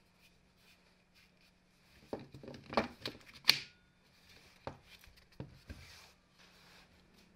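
Makita 18V lithium-ion battery pack slid onto a plastic battery mount on a hammer drill: plastic scraping and knocks, then a sharp click about three and a half seconds in as the pack latches into place. A couple of lighter knocks follow.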